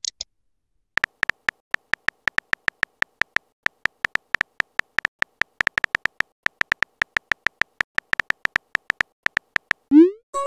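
Keyboard typing clicks from a texting-story app: a fast, uneven run of short, sharp ticks, one per character as a message is typed out, starting about a second in. Near the end a short rising tone sounds as the message is sent.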